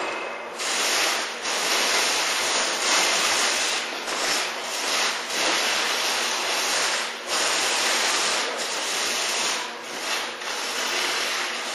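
Repeated scraping and grinding strokes across the broken glass top of a security showcase, roughly one stroke a second, as shattered glass fragments are rubbed and pushed around.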